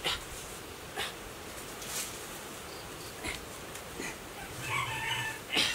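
Bare hands and feet gripping and scraping against a coconut palm trunk during a climb, giving short sharp knocks about once a second. A short animal call, in the manner of a rooster crowing, comes near the end.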